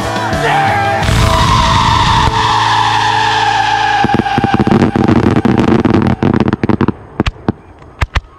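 The final held chord of a song fades under a fireworks finale. From about four seconds in, a dense barrage of aerial shell bursts and sharp cracking reports comes, then thins to a few scattered bangs near the end.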